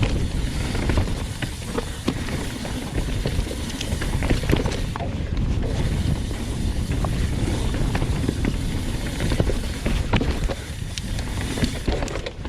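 Hardtail mountain bike (Commencal Meta HT) riding fast down a dirt trail: a steady rush of wind and tyre noise on the camera microphone, with frequent clicks and rattles from the bike over bumps.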